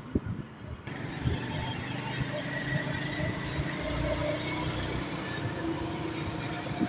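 Motorcycle engine running steadily on the move, with road and wind noise and a sharp knock just after the start.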